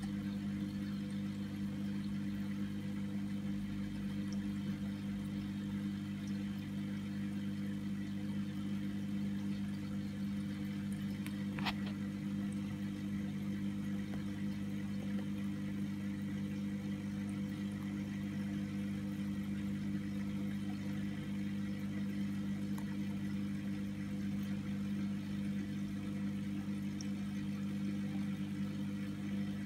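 Steady electric hum of an aquarium pump, one constant low tone with a few higher overtones, and a single faint click about twelve seconds in.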